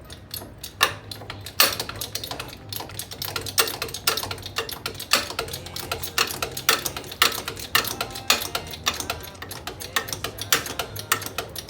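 Irregular run of sharp metallic clicks and clacks, several a second, from hand tools and a jack being worked on the rear suspension.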